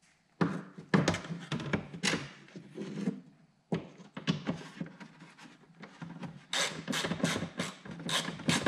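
Small low-clearance ratchet clicking in short strokes as a 10mm nut is run down on a car's lower brake vent. The clicking grows quicker and louder near the end.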